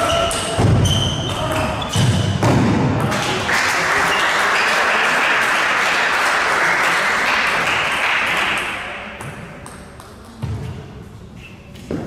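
Table tennis rally: the celluloid ball clicks sharply off bats and table for about three seconds. The point ends, spectators applaud for several seconds and the applause fades away, then a couple of ball taps near the end.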